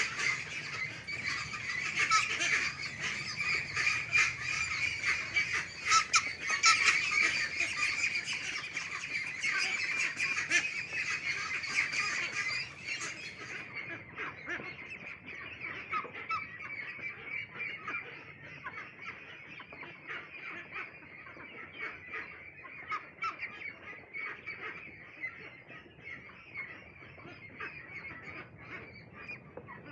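A flock of 29-day-old hybrid ducklings calling without pause, with many overlapping high, short calls. The calls are quieter from about 13 seconds in.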